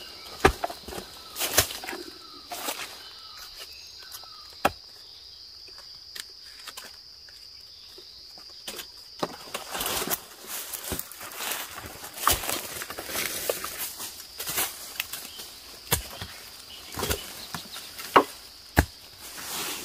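Hand digging tool striking into soil and dry bamboo leaves to dig out bamboo shoots, in irregular strikes with leaf rustling between. A steady high insect drone goes on behind it.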